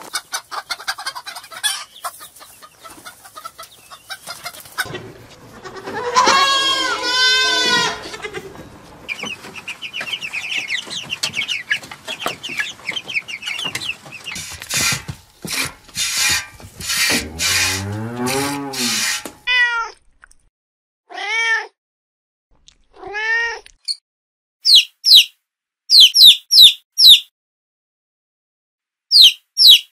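Chickens clucking and calling, followed by three drawn-out falling calls, then a newly hatched chick peeping in short, high cheeps over the last few seconds.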